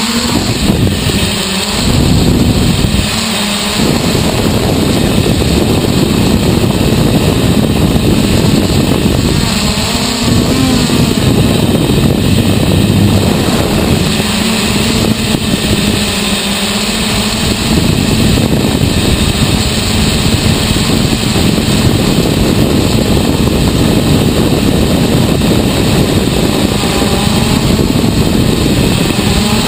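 Hexacopter's six brushless motors and 10-inch propellers running in flight, heard from the camera mounted on the craft: a loud, steady, noisy buzz whose pitch wavers now and then.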